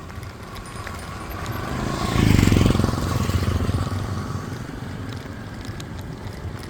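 A motor vehicle's engine passes by. It grows louder, peaks about two seconds in, then fades away.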